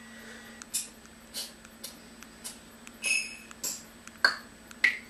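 Short percussion sounds and light stylus taps from a Samsung Omnia II phone running the Caxixi drum app, heard through the phone's small speaker as instrument sounds are picked. There are about eight brief, separate hits. One about three seconds in rings briefly with several clear tones, and the sharpest click comes just past four seconds.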